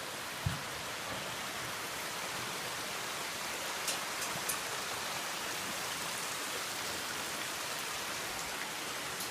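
Steady rushing of a waterfall, with a single low thump about half a second in and a few faint clicks around four seconds.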